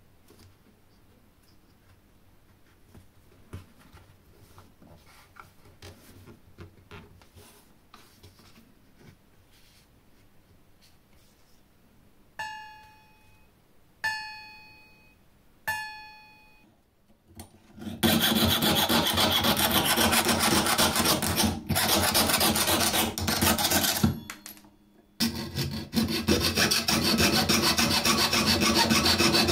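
Jeweler's saw with a homemade titanium frame. Faint clicks of handling while the blade is fitted, then the tensioned blade is plucked three times to check its tension, each pluck ringing with a clear note that dies away. Then the saw blade cuts aluminium angle in fast, steady rasping strokes, with a brief pause partway through.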